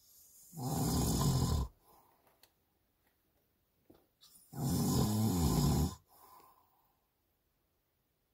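A sleeping person snoring loudly, two deep rasping snores about four seconds apart, each lasting about a second and followed by a softer out-breath.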